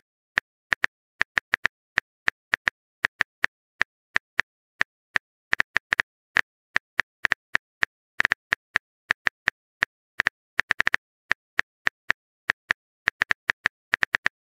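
Texting-app keyboard typing sound effect: a run of short, identical clicks, about four a second at an uneven pace, one per letter as a message is typed.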